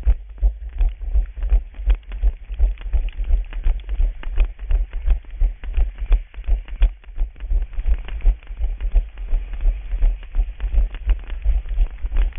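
Running footsteps picked up by a body-worn camera: a steady rhythm of low thuds, about three strides a second, as the runner sprints over paving and then grass.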